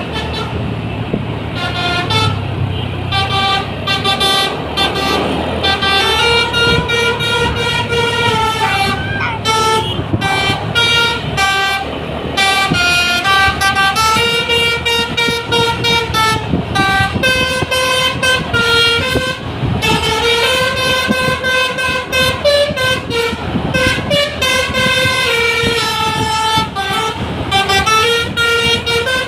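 A bus's telolet basuri horn playing a tune, a run of loud held notes that step and slide between pitches, with the bus's engine running underneath.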